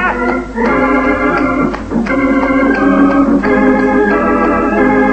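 Hammond organ playing sustained chords that change about every second or so, with short breaks between them. Faint clicks of tap shoes on the stage floor sit under the organ.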